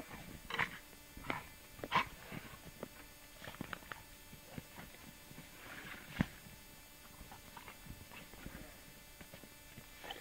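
A dog making irregular short breathy sounds and clicks, with a sharper knock about two seconds in and another about six seconds in.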